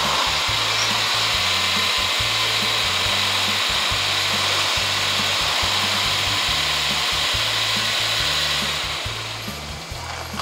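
Background music with a stepping bass line, under a loud steady hiss that fades out about nine seconds in.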